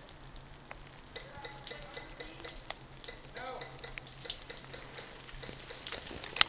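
Low crackling rustle with a few faint scattered ticks, faint distant voices calling about halfway through, and one sharp click just before the end.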